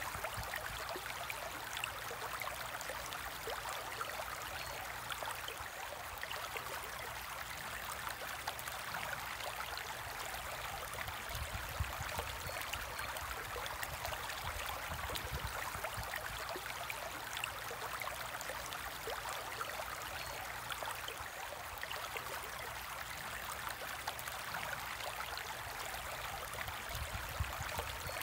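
Steady trickle of circulating aquarium water, a fine, even splashing that neither starts nor stops.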